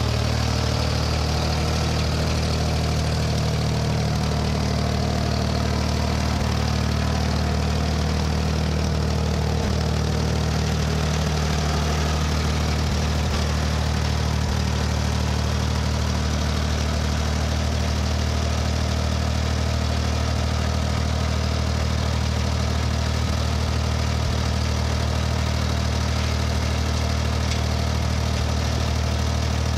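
1967 Ford 2000 tractor's three-cylinder engine idling steadily at an even speed.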